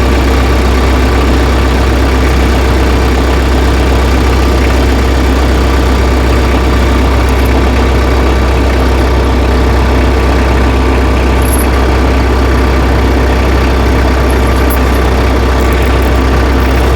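Tractor engine idling steadily, with a strong low drone. A few faint small clicks come in over it in the second half.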